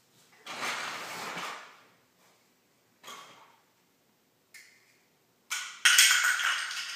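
A toddler handling plastic toys on a tile floor: several bursts of scraping and clattering, the loudest and longest near the end.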